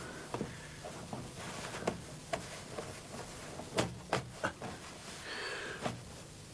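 Scattered light knocks and clicks on wood and a rustle of cloth as a person moves about and sits down on a wooden bed, against a low room hum.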